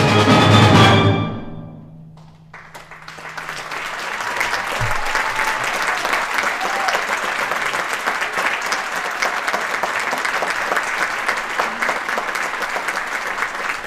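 A concert band's final loud chord, with percussion, rings and dies away over about two seconds. Then audience applause rises and continues steadily.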